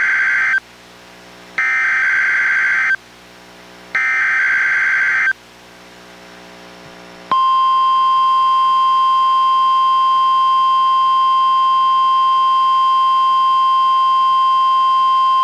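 NOAA Weather Radio test broadcast: the end of one and then two more SAME digital header bursts, each about a second of rapid two-tone warbling data. About seven seconds in, the steady 1050 Hz warning alarm tone starts and holds.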